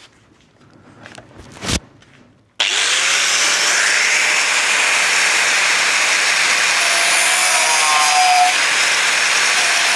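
A sharp knock, then about two and a half seconds in a disc cutter (angle grinder with a cutting disc) starts abruptly and cuts steadily through the car's sheet-steel cross member.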